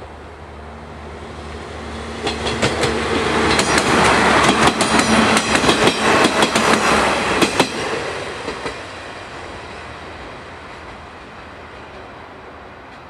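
Two-car Kanto Railway KiHa 310-series diesel railcar train pulling away from a station under power and passing close by. Its diesel engine drone builds as it approaches. A rapid run of wheel clacks over the rail joints peaks as the cars go by, from about four to seven and a half seconds in, then the sound fades as the train moves off.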